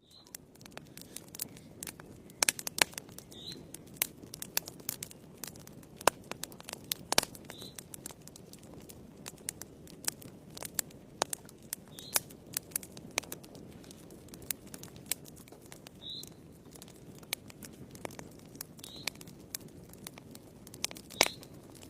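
Wood fire burning in a fireplace, crackling with frequent irregular sharp pops and snaps over a low steady rush of flame. A short, faint high squeak sounds every few seconds.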